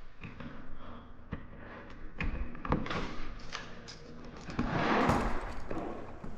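Several scattered knocks and thuds, with a brief rushing noise about five seconds in.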